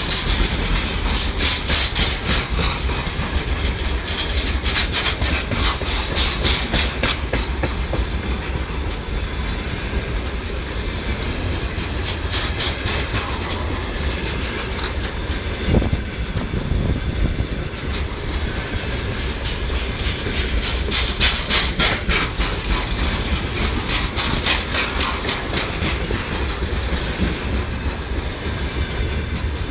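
Freight train wagons, covered hoppers and open cars, rolling past close by: a steady rumble of steel wheels on rail with recurring bursts of clickety-clack as the wheelsets pass over the rails. One louder knock stands out about halfway through.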